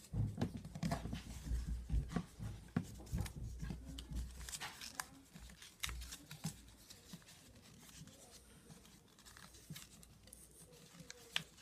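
Origami paper rustling and crinkling as it is folded and creased by hand, with soft bumps against the tabletop. Busiest in the first half, then quieter with only scattered small crackles.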